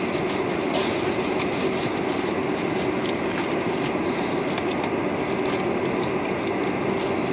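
Steady cabin noise inside a Boeing 747-400 taxiing, its engines running at low taxi power, with frequent faint clicks and rattles over the even rumble.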